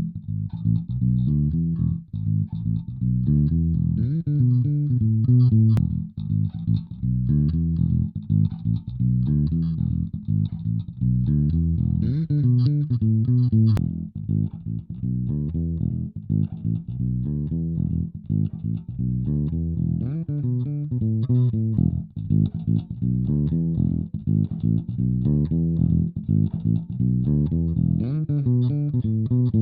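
G&L L-2500 five-string electric bass played through an amp, a continuous bass line of plucked notes with a few rising slides.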